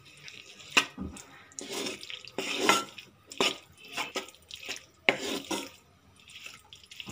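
Spatula stirring diced potatoes and tomatoes in a metal pan: irregular wet scraping strokes with a few sharp knocks against the pan.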